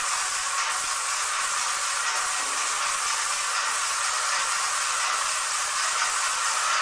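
Airless paint spray gun spraying continuously, a steady hiss of paint being atomised at high pressure.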